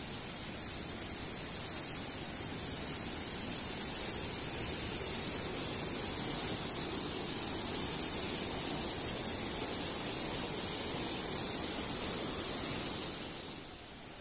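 Steady roar of rushing water from the Iguazu River's falls and rapids, an even rushing noise with a high hiss over it, easing off a little near the end.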